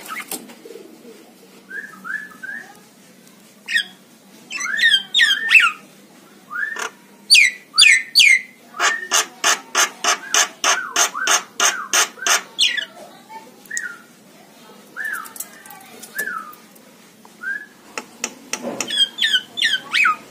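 Javan mynas calling: short whistled notes, harsh gliding call phrases, and a rapid run of repeated notes in the middle, with another burst of calls near the end.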